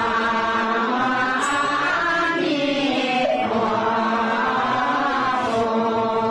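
Slow Buddhist devotional chanting: a voice sings in long, drawn-out phrases, holding and sliding between notes, over a steady low drone.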